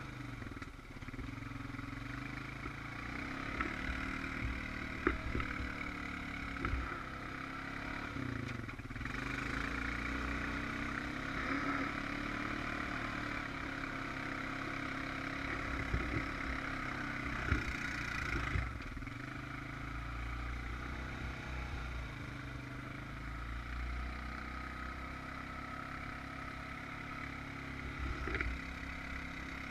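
Honda Rancher 420 ATV's single-cylinder engine running and revving up and down as it is driven through mud, with a few short sharp knocks.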